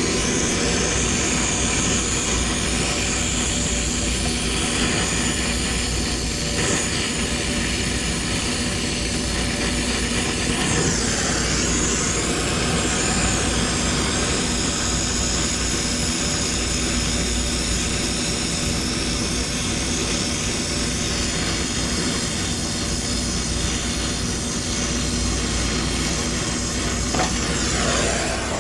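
Steady machinery drone with a constant hum, unbroken throughout, with a brief pitch sweep about eleven seconds in and another near the end.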